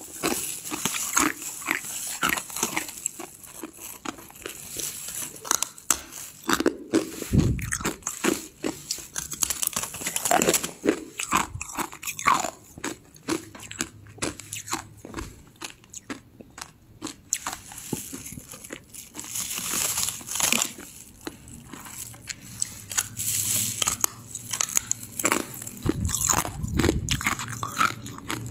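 A person biting and crunching hard frozen ice, chewing it with a dense, irregular run of sharp cracks and crunches broken by short pauses.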